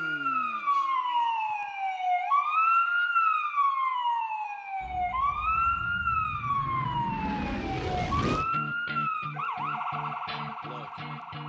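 Siren sound effect over the arena PA: a wail that rises quickly and falls slowly, repeating four times. A low rumble joins about five seconds in and swells into a rising whoosh, and about eight and a half seconds in a steady pulsing beat of the fighter's walk-out music takes over.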